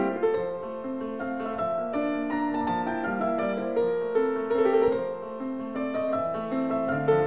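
Background piano music, a melody of held notes over chords.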